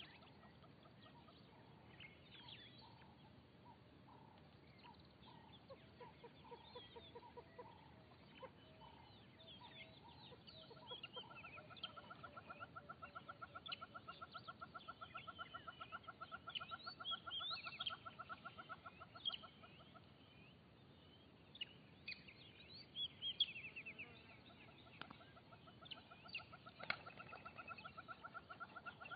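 Faint wild birdsong: assorted chirps and whistles, with a fast clucking rattle of about ten notes a second that starts about a third of the way in, runs for several seconds, stops, and comes back near the end.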